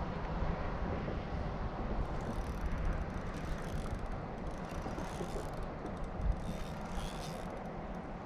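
Wind buffeting the microphone in a steady low rumble, with water lapping and splashing against the kayak hull as irregular crackles.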